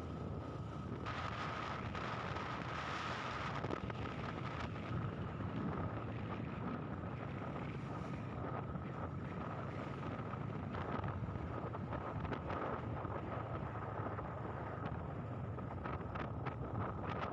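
Steady wind noise buffeting the microphone over the running of a moving vehicle, with a faint steady whine sitting above it.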